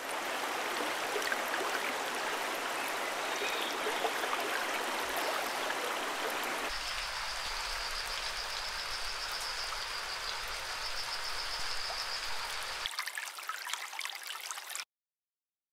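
Outdoor ambience: a steady rushing hiss. About halfway through, a high, rapidly pulsing trill joins it, and the sound cuts off shortly before the end.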